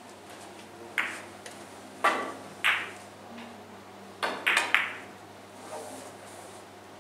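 Carom billiard balls clacking: sharp, ringing clicks of cue tip on ball and ball on ball. Three come singly in the first three seconds, then a quick run of three about four and a half seconds in as a shot is played.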